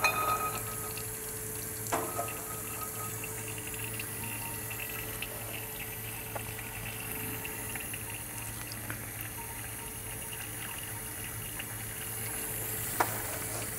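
A thin stream of freshly condensed spirit trickling steadily from a still's parrot spout into a glass collection jar, over a low steady hum. A light click comes about two seconds in and again near the end.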